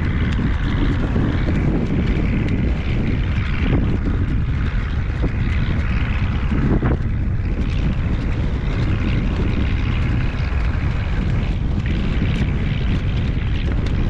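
Strong wind blowing across the microphone, a loud, steady rumble.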